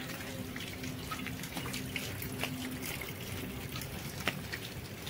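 Quiet dripping and trickling of rainwater after a heavy downpour, with scattered small ticks.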